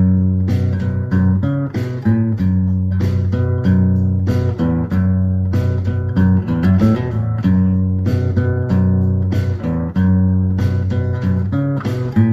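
Background music: guitar playing a steady, rhythmic pattern of plucked or strummed notes.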